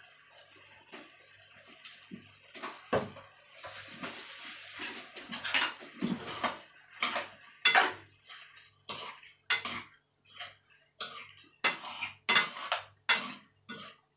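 A cooking utensil clinking and scraping against a pan while fried spaghetti is tossed, in short irregular strokes that come faster and louder from about four seconds in.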